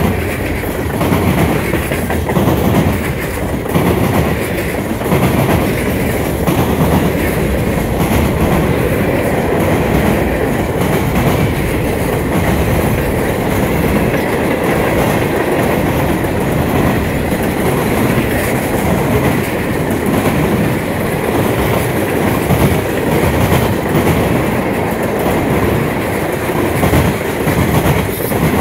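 Freight cars rolling past: a loud, steady rumble of steel wheels on rail, with repeated clacks as the wheel sets pass.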